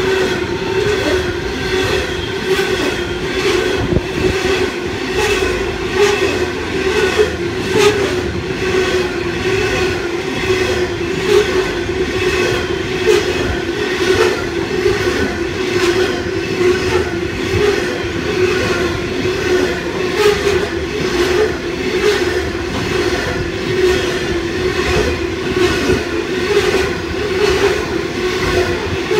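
Coal hopper wagons of a long freight train rolling past: a steady rumble of steel wheels on rail, with a constant whine running through it and a rhythmic clacking that keeps repeating.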